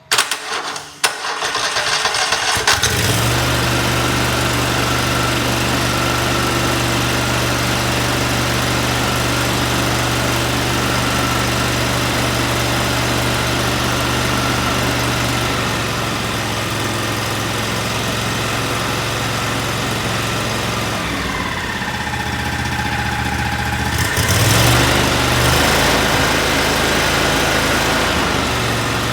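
Kohler Command 20 engine turning over on its starter and catching about two and a half seconds in, then running smoothly and steadily. Around 21 seconds in the speed eases down, and about three seconds later it picks up again and runs a little louder. The sound is of a healthy, good-running engine.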